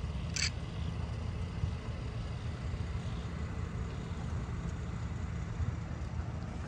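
Wind buffeting the phone's microphone: a steady, uneven low rumble, with a short hiss about half a second in.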